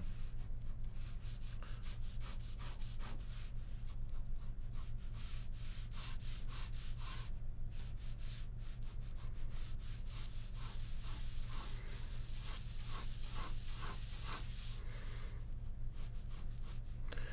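Ballpoint pen scratching across drawing paper in quick, irregular strokes of varied length, over a steady low electrical hum.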